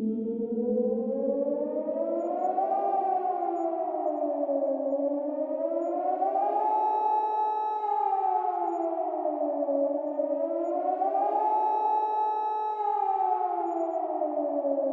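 Nuclear-attack warning siren of the civil-defense type wailing, its pitch rising and falling in slow waves of about four to five seconds. Two tones slide together, and the later peaks hold at the top for a second or so before falling.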